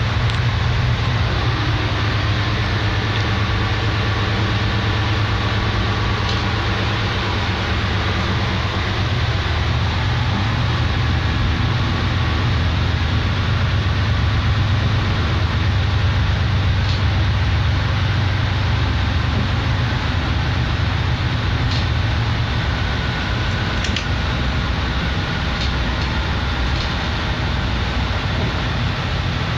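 Diesel engine of an SM42 6Dg/B diesel locomotive running steadily under load in the cab, hauling a heavy train at about 20 km/h under cruise control. The engine eases back slightly partway through as the cruise control holds the set speed.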